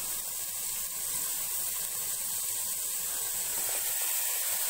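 Diced snake gourd sizzling in hot oil in a pan, a steady hiss.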